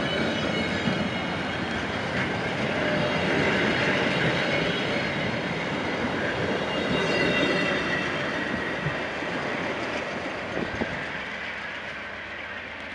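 VIA Rail LRC passenger cars rolling past close by, a steady rush of wheels on rail with faint high ringing. It fades over the last few seconds as the rear of the train passes and pulls away.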